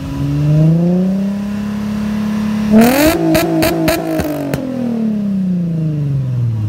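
A car engine revved hard through its exhaust: the pitch climbs and holds, then about three seconds in it spikes with a quick series of sharp cracks and pops from the exhaust, and the revs fall slowly back down.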